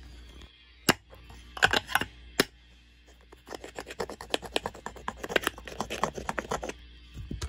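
Hammer knocking and scraping against the metal centre of a seized tweeter. There are a few sharp knocks in the first two and a half seconds, then a fast run of scraping taps for about three seconds, as the locked-up tweeter is worked loose.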